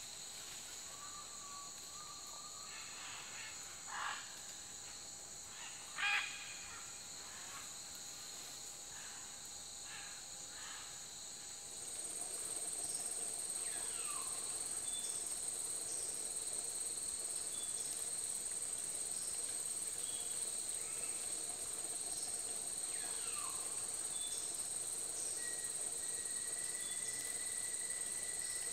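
Rainforest ambience: a steady, high-pitched chorus of insects that grows louder about twelve seconds in. Two short sharp sounds come about four and six seconds in, and a couple of falling whistled calls come later.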